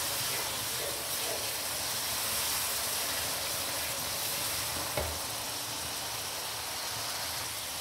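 Thick tomato-onion spice masala sizzling in oil in a nonstick wok, stirred with a wooden spoon while freshly added green chili paste fries in it. A single light knock about five seconds in.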